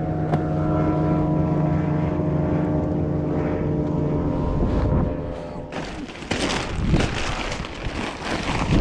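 Boat motor running with a steady hum, cutting out about five seconds in; after that, gusty wind buffets the microphone.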